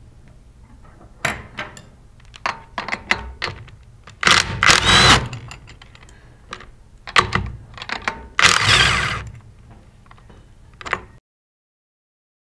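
Cordless 3/8-inch-drive impact gun running in two short bursts of about a second each, backing out the bolts that hold a plastic pump's discharge manifold. Clicks and knocks of the tool and loose bolts come between the bursts, and the sound cuts off suddenly near the end.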